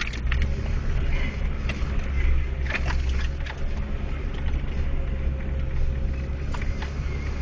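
Off-road vehicle's engine running steadily under load while climbing a hill, heard from on board, with a few scattered knocks and rattles.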